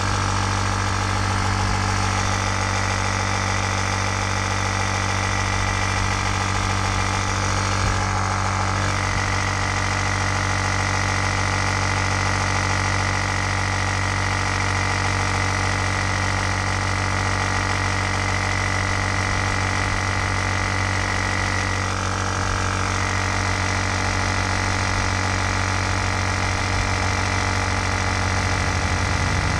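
Electric 12-volt inflation pump running steadily, its motor humming as it pumps air through the hose into an inflatable boat; its pitch shifts slightly about eight seconds in.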